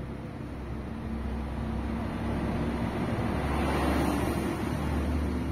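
Steady low background hum with a broad rumble that swells about three to four seconds in and then eases off.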